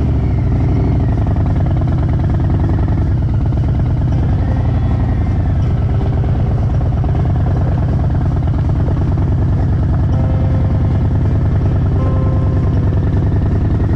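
Harley-Davidson motorcycle engine running steadily under way.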